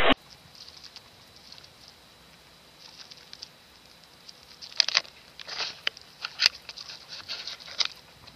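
Light scratching and tapping, faint at first, then a run of short, sharp clicks and scrapes in the second half.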